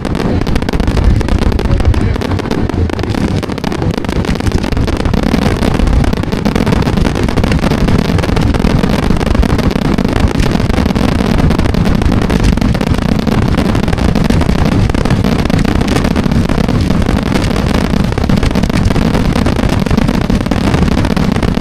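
Fireworks going off in a dense, continuous barrage: rapid overlapping booms and crackling merge into one loud, unbroken rumble.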